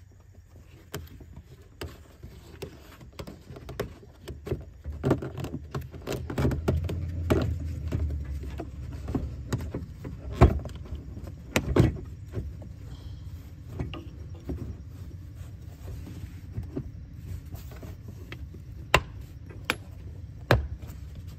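Plastic engine air box of a 2021 Subaru Forester being closed over a new air filter: scraping and knocking of plastic as the lid is worked into place, with sharp clicks as its clips snap shut, two near the end.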